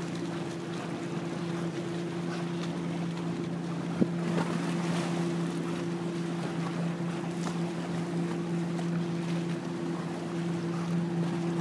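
A steady engine drone holding one low pitch, over wind buffeting the microphone and the wash of small waves. One sharp knock about four seconds in.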